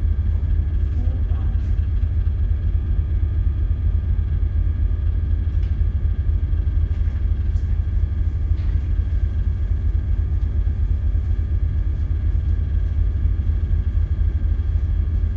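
Steady low rumble of a ship's running machinery heard on the bridge, with a faint steady hum above it.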